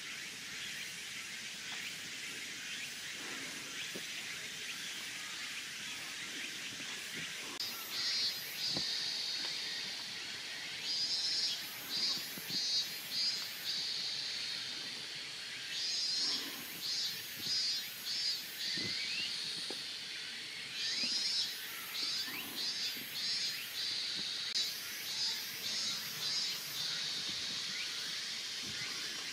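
Insects calling: a steady, high-pitched hiss-like drone, joined from about a quarter of the way in by rapid pulsing chirps in repeated bouts.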